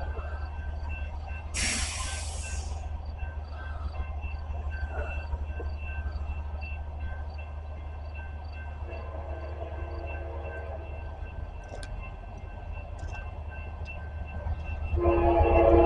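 CSX freight train approaching, with a steady low rumble. Its locomotive horn sounds faintly about nine seconds in, then loud from about fifteen seconds in. There is a brief hiss about two seconds in.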